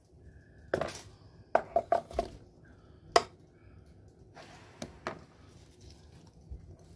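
A metal spoon clinking and scraping against a mixing bowl and metal muffin tin while cake batter is spooned into paper liners: a few scattered light clinks, the sharpest about three seconds in.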